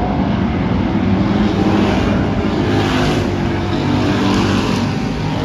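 Dirt-track race car engines running on the track, a steady loud drone of several engines that swells a little around the middle.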